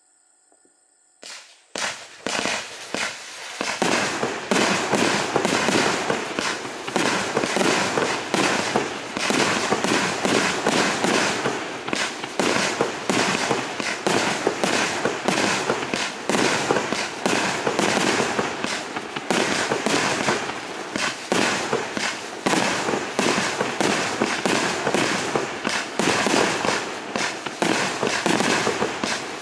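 Vulcan 'Poisonous Spider' multi-shot firework going off: a first pop about a second in, then a fast, unbroken run of shots and crackling bursts, several a second.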